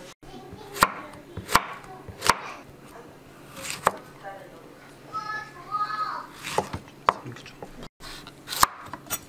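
Kitchen knife slicing through firm vegetables onto a wooden cutting board: single sharp knocks spaced about a second apart, at an unhurried pace.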